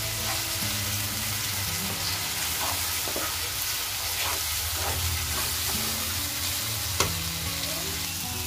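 Onion-and-spice masala sizzling in oil in a nonstick kadhai while a wooden spatula stirs and scrapes it, the masala being roasted (bhuna) before the chicken goes in. A single sharp tap about seven seconds in.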